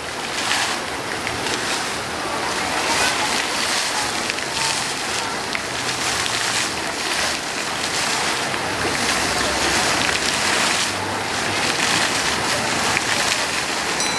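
Dancing fountain's water jets spraying and splashing down into the pool: a steady hiss of falling water that swells and ebbs in surges as the jets change.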